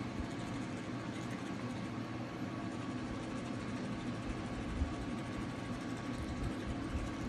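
A steady low mechanical hum, with a faint thin tone over it and a couple of soft knocks.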